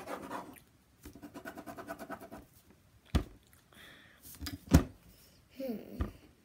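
Pencil scratching across paper in quick rapid strokes, then three sharp knocks, the loudest about halfway through.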